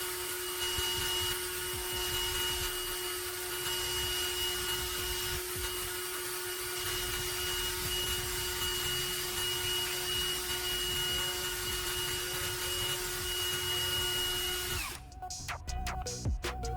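Small electric power tool running at a steady speed with a constant whine, then switched off about 15 seconds in, its pitch falling as it winds down. Short clicks and music follow near the end.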